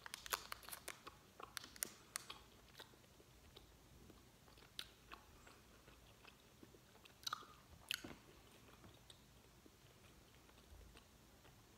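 Faint clicks and crinkles of a small candy wrapper being picked at and unwrapped by hand, clustered in the first two seconds with a few single clicks later, over near silence.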